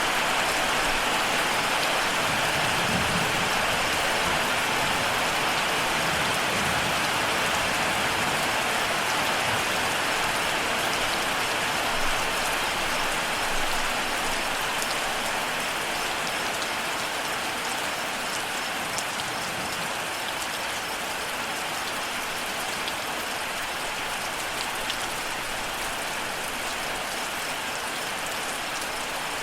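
Steady rain falling on surfaces, an even hiss with a few sharper drop splats.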